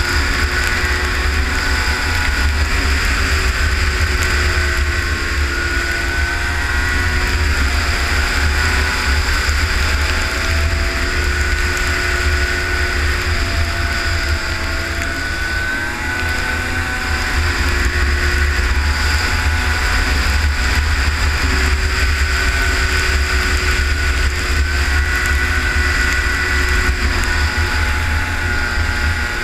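Arctic Cat ZR 500 snowmobile engine running on the move, its pitch rising and falling as the throttle varies, with heavy wind rumble on the microphone.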